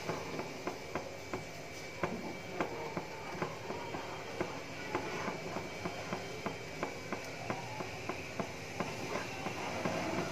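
Slotted spoon stirring semolina into boiling milk in a nonstick pan, its edge clicking and scraping against the pan about two or three times a second. This is the lumpy sooji halwa mixture being worked smooth right after the semolina goes in.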